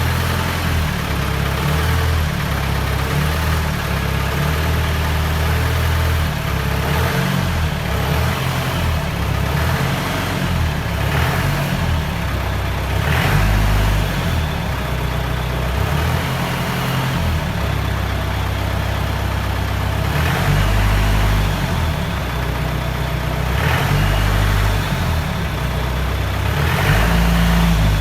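Jeep engine idling at the exhaust while it warms up after standing unused for days, the engine note swelling briefly a few times.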